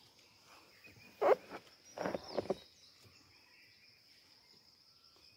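Steady high-pitched drone of forest insects, with two short, louder sounds about one and two seconds in.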